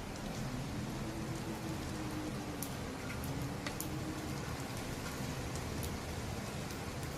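Steady heavy rain driven by typhoon wind, with a faint wavering wind howl underneath and scattered sharp drops ticking.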